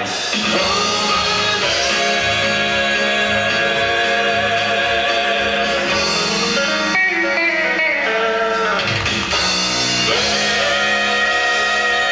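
Gospel vocal group singing long held chords over band accompaniment, the chords changing a few times.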